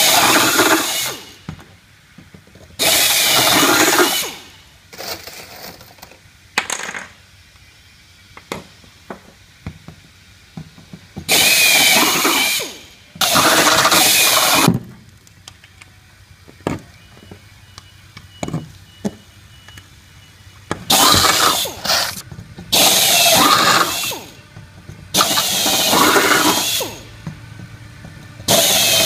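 Air drill drilling rivet holes through a steel sheet-metal upturn and a sidewall panel, in about seven bursts of one to two seconds each, with small clicks and knocks between the bursts.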